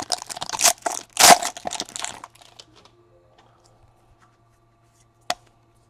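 Foil card-pack wrapper crinkling loudly as hands pull it open off a stack of trading cards, for about two seconds. Then it goes quiet, apart from one sharp click near the end.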